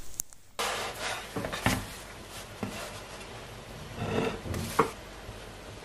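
Wooden spatula knocking and scraping against flatbreads on a dry, unoiled griddle pan: a handful of light taps and rubs over a steady faint hiss.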